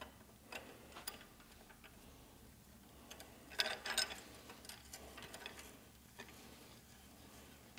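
Metal turning handle being spun by hand onto a threaded shaft over greased flat washers: faint scattered metal clicks and light knocks, with a short cluster of louder clinks about three and a half seconds in.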